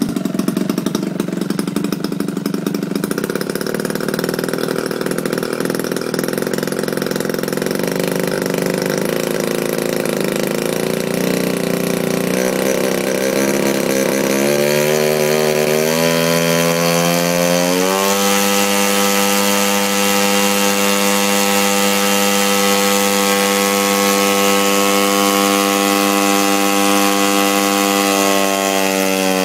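Engine of a radio-controlled Top Flite P-40 Warhawk scale model running with its propeller spinning. It runs low and a little unevenly, then about halfway through climbs in steps to a steady high pitch at full throttle, and starts to drop right at the end.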